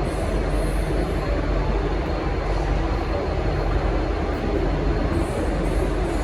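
V/Line N-class diesel locomotive running steadily, a low even engine drone with a constant hiss over it.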